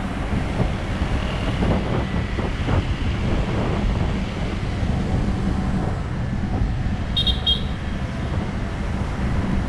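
Steady wind and road noise from a moving motorbike, the engine running under wind buffeting on the microphone. Two short high beeps come about seven seconds in.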